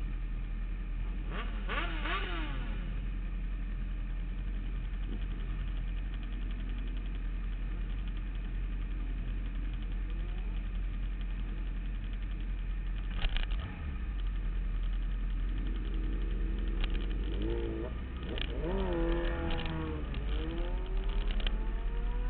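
Sport motorcycle engines idling together in a queue as a steady low hum, with a brief rev about two seconds in. From about sixteen seconds on, several engines rev up and down, overlapping, as bikes pull away one after another.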